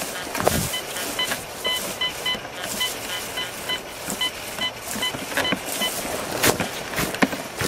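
Metal detector sounding a run of short, high beeps, on and off, as its coil sweeps low over the grass, with scattered knocks and rustles from the coil brushing through the vegetation.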